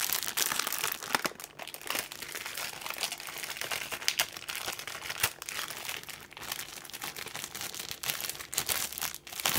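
Clear plastic bags holding Gunpla kit runners rustling as they are handled and lifted out of the kit box, steady throughout with many sharp crackles.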